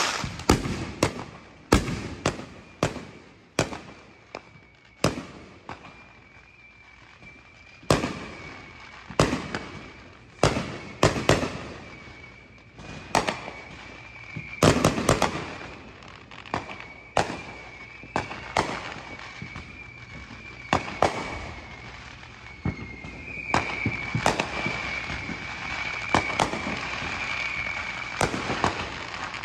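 Aerial fireworks going off: a rapid run of crackling bangs at the start, then sharp bangs every second or two through the rest, some louder and some fainter. A steady high tone runs underneath from about five seconds in.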